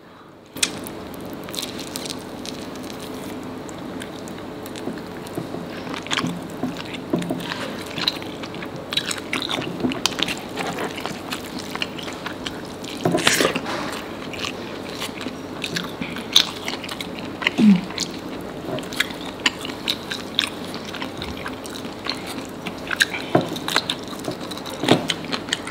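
Close-miked eating sounds: biting and chewing chicken and rice eaten by hand, with frequent small wet clicks and crunches.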